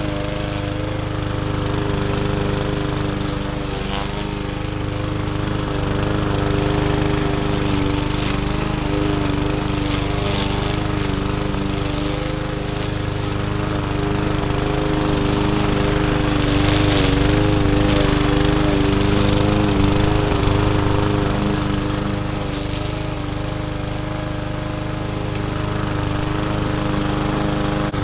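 Gas walk-behind push mower's small engine running steadily while cutting through tall, thick grass and weeds, its note wavering now and then as it takes the load.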